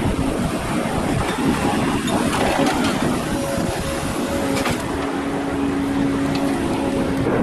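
Heavy diesel machinery running steadily, a hydraulic excavator working, with a steady hum and a couple of short clicks over a dense rumble.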